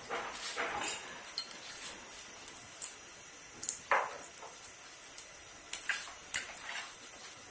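Scattered light clinks and knocks of cookware on a stovetop, over a faint steady high hiss.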